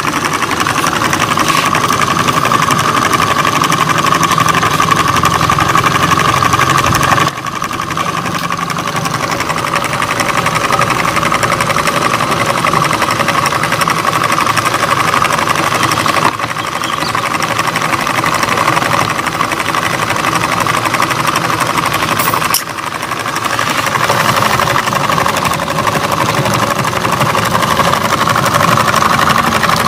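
Homemade syringe-piston model engine running: the syringe plunger, crank on a ball-bearing flywheel and belt-driven small DC motor make a steady mechanical whirr with a high whine. The sound drops briefly three times.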